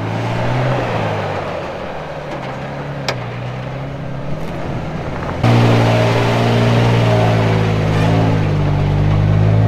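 Toyota Tacoma's engine running at low revs as the truck crawls up a rocky trail, with a hiss over it at first. About five seconds in the sound cuts abruptly to a closer, louder and steadier engine note.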